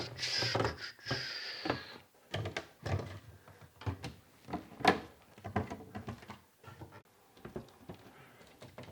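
Faucet handles being turned and wiggled to check for looseness: a short hiss in the first couple of seconds, then a string of separate knocks and clunks.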